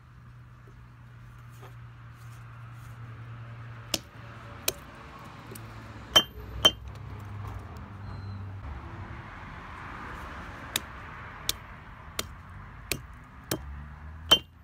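A steel club hammer smashing a raw carrot on concrete paving slabs: about ten sharp, clinking blows of the hammer head on the stone, a few scattered ones with the loudest pair about six seconds in, then a steady run of strikes less than a second apart near the end.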